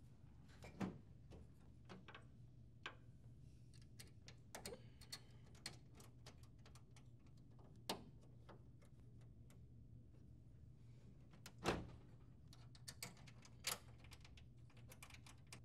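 Scattered small clicks and knocks as a metal mounting bracket and its screw are handled and fitted against a printer's plastic side panel, the loudest knock about twelve seconds in. A faint low steady hum lies underneath.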